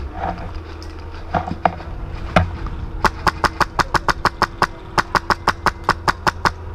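Airsoft gun firing rapid shots, about six a second in two strings with a short break between, each shot a sharp click.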